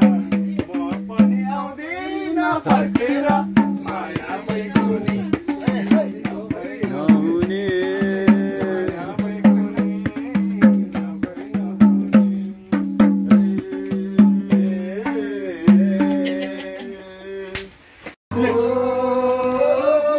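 Madal, the two-headed Nepali barrel hand drum, played by hand in a quick, steady rhythm with a ringing low note on each stroke, while voices sing along. Near the end the drumming stops abruptly, and singing voices carry on.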